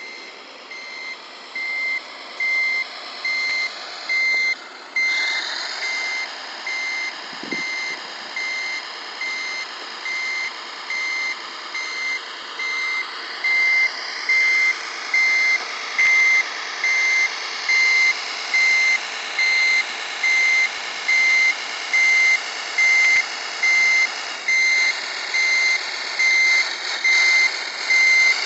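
Electronic reversing beeper from the sound module of an RC Mercedes-Benz SK 3544 8x8 dump truck, sounding a steady series of beeps a little faster than one a second. The module's simulated truck engine sound runs underneath.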